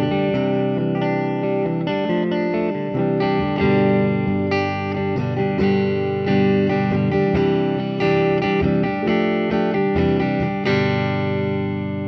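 Electric guitar, a 2010 Gibson SG Standard with its stock Zamak tailpiece, played clean through a Fender 80s Super Champ amp: picked chords and notes changing every half second or so. A last chord struck near the end rings out and fades.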